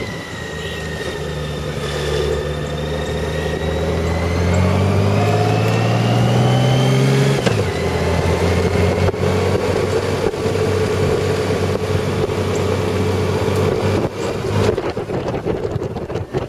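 Honda Gold Wing motorcycle accelerating, heard from the passenger seat: the engine's pitch climbs steadily for about seven seconds, drops abruptly at a gear change, then settles into steady cruising with wind noise on the microphone growing near the end.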